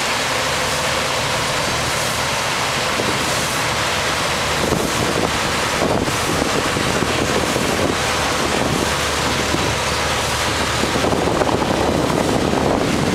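River ferry boat's engine running steadily as the boat pulls away from the landing, with wind buffeting the microphone.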